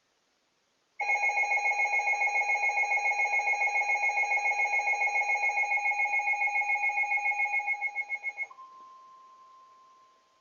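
Emergency alert alarm tone: a loud electronic tone pulsing rapidly, about seven beats a second, starts about a second in and runs for about seven seconds, fading at the end. A fainter, steady single tone follows it.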